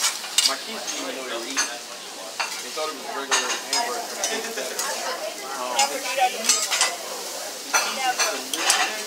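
Food sizzling on a steel teppanyaki griddle, with repeated quick clinks and scrapes of metal spatulas against the hot plate as the chef stirs and chops chopped cabbage.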